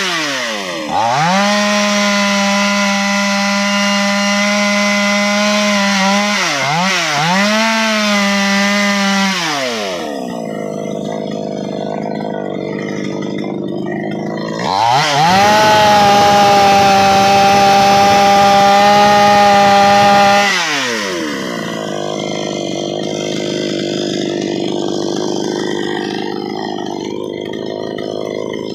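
Chainsaw engine running at high revs and held there, dipping twice, then dropping back to a low idle. Near the middle it revs up again and holds full speed for about five seconds before falling back to idle.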